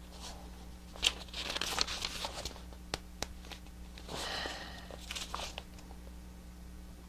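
Pages of a paperback Bible being turned by hand: soft paper rustles, with a few light taps of the pages, in two main flurries about a second and a half in and again around four seconds in.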